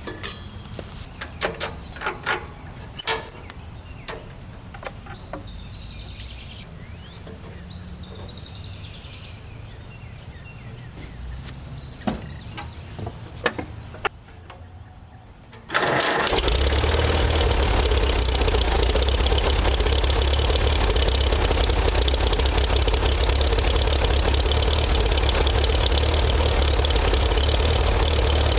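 A few scattered metal clanks and knocks, then about halfway through a tractor engine cranks briefly, catches and runs steadily and loudly.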